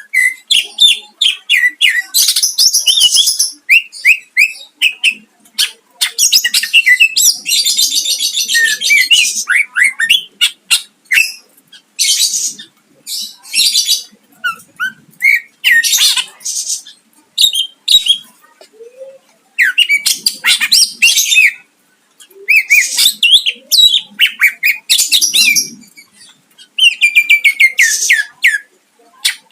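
Cucak ijo (greater green leafbird) singing a loud, varied song of rapid chirps, trills and harsh bursts between mimicked notes of other birds. The song comes in runs of several seconds, with brief pauses about a third and about two thirds of the way through.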